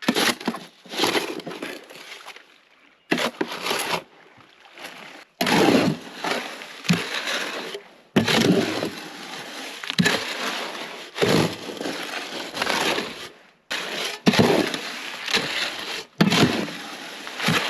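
Wet concrete of navvy jack gravel and Portland cement being mixed by hand: a series of scraping, crunching strokes, each a second or two long, with short pauses between.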